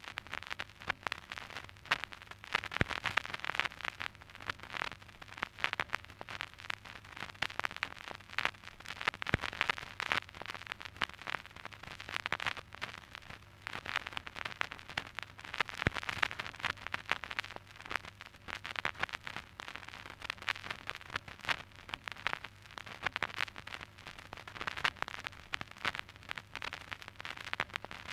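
Surface noise of an old vinyl record: dense, irregular crackles and pops over a steady hiss, with a faint low hum underneath.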